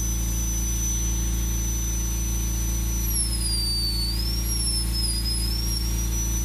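High-speed rotary power carver, a handpiece like a dentist's drill, whining at a steady high pitch; from about three seconds in the pitch dips and wavers as the bit bears into the wood, cutting the fish scales. A steady low hum runs underneath.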